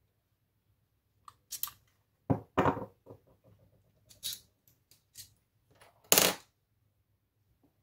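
A padlock and small metal tools being handled and set down on a hard countertop: a string of clicks and knocks, the loudest a pair about two and a half seconds in and another about six seconds in.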